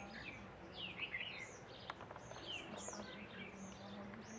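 Several small birds chirping: quick, high, curved notes overlapping without a break, over a faint steady low hum.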